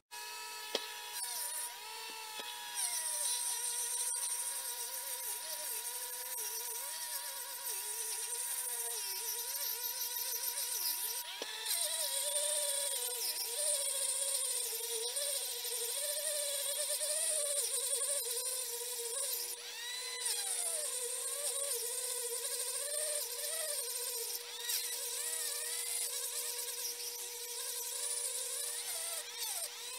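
High-speed rotary tool running steadily, its bit grinding metal from the intake port of a motorcycle cylinder head during porting. A constant whine is joined by a second tone that wavers up and down as the bit bears on the port walls, with a bright hiss above.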